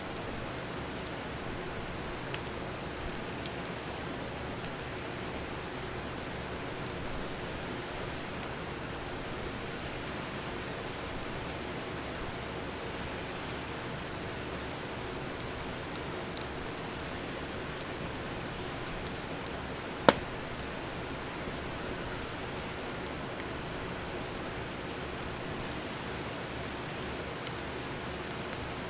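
Wood campfire burning: a steady hiss with scattered crackles and pops from the burning wood, and one sharp, much louder pop about two-thirds of the way through.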